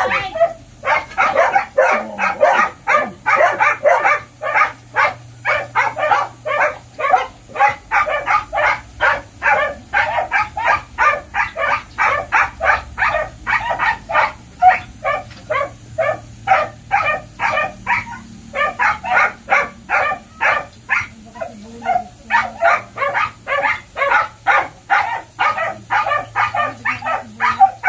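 Dogs barking over and over, about two to three short barks a second, with only a few brief pauses.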